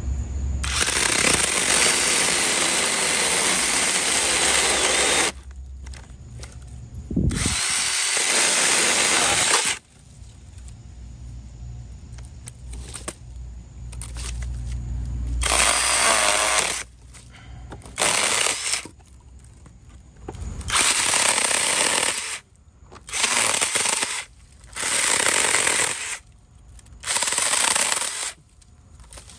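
GardenJoy 4-inch cordless handheld mini chainsaw, its battery-powered electric motor and chain buzzing as it cuts through a dried Christmas tree trunk about 3 inches thick. It runs in bursts on the trigger: a few runs of several seconds at first, then short bursts of about a second each near the end.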